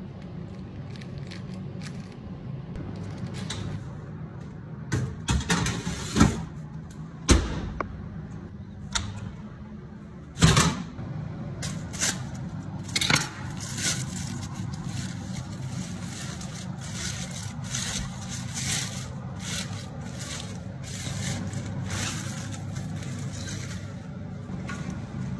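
Food-handling noises: sharp knocks and scrapes on a work surface and aluminium foil crinkling, over a steady low hum.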